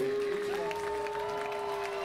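A group of voices doing a Tarzan-yell cheer: one long steady held yell, with more voices joining at higher pitches about half a second in, over applause.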